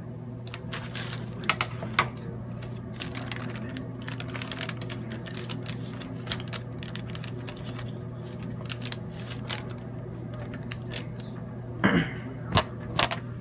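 Irregular crackling and clicking from a cannabis bud squeezed in parchment paper between the heated plates of a hair straightener while rosin is pressed out, over a steady low hum. A few louder knocks near the end as the press is handled.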